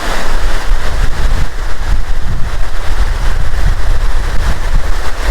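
Wind buffeting the microphone in a loud, uneven low rumble, over the steady rush of Latourell Falls.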